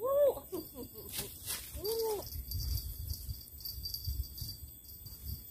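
Two short animal calls, each rising and then falling in pitch, about two seconds apart.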